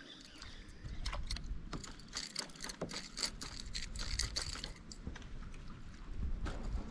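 Irregular light clicks and small metallic rattles, in clusters, over a low rumble: fishing tackle being handled aboard a kayak.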